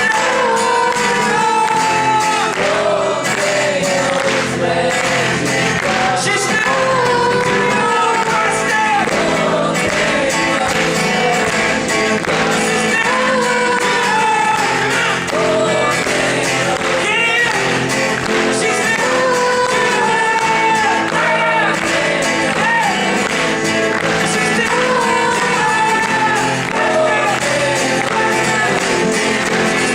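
Live folk-rock song performed in a large hall: voices singing a slow melody over guitar accompaniment, continuously and at a steady level.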